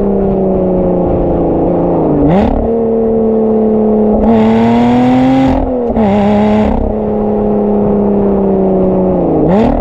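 Lotus Evora GT's supercharged 3.5-litre V6 running under way, its note sagging slowly and then briefly dipping and jumping in pitch twice, about two seconds in and near the end. In the middle it gets louder with a rushing hiss over the engine for a couple of seconds, broken by a short dip.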